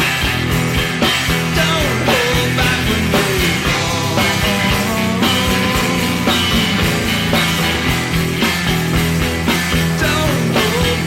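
Rock music with a steady drum beat, a bass line and sliding melodic lines above.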